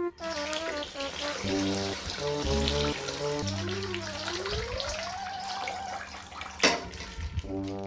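Water pouring and splashing from a water-filled plastic bag as it is opened, under cheerful background music, with one brief sharp sound about two-thirds of the way through.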